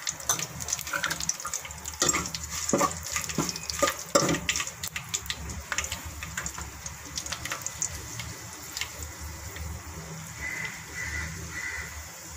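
Curry leaves and fenugreek seeds sizzling and crackling in hot oil, with dense sharp pops over the first few seconds that thin out to a steadier sizzle.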